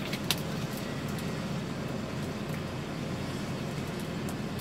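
Truck engine idling steadily, a low hum heard inside the cab, with one short click just after the start.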